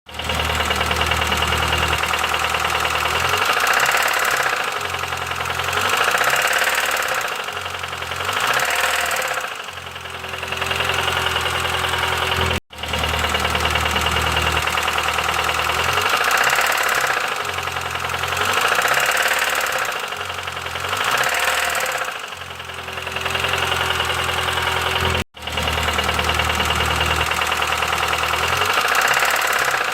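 Petrol car engine running, its revs rising and falling, with a clacking knock from the engine. The same stretch of sound repeats, broken by two short sudden gaps about 13 and 25 seconds in.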